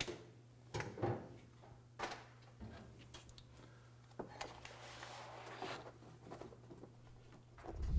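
Faint scattered rustles and taps of sheet material being handled: kraft paper cut with scissors, then foil-faced Dynamat sound-deadening sheet pressed and smoothed by hand against the car's roof panel, with a softer rubbing stretch in the second half. A low steady hum runs underneath and stops just before the end.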